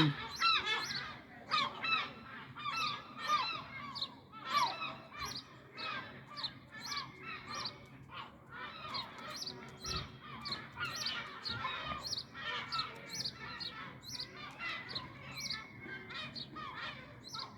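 A flock of seagulls calling noisily: many short, overlapping cries repeated over and over, with no break.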